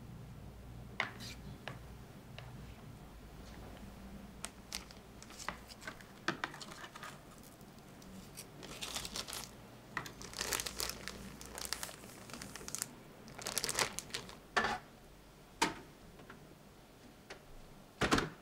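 A plastic zip-top bag crinkling and rustling in short bursts as shredded vegetables and seared salmon are put into it. Light clicks are scattered throughout.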